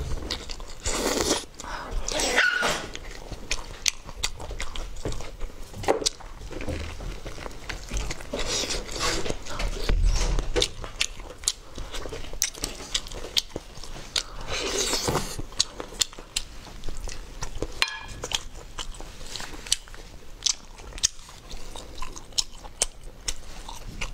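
Close-miked eating of lamb shank: wet lip-smacking, sucking and chewing as meat is bitten and pulled off the bone, with frequent short clicks and a few louder slurps.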